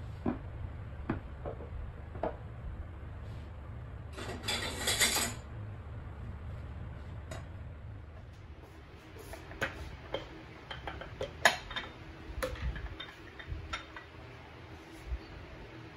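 Kitchen containers and items being handled and set down on a counter: scattered light clicks and knocks, the sharpest about eleven seconds in, with a one-second rustling hiss about four seconds in, over a steady low hum.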